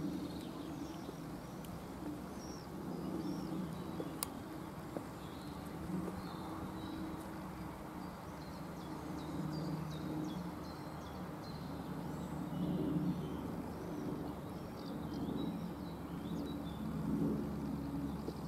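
Small birds chirping and singing over a low, steady rumble, with a few sharp taps here and there.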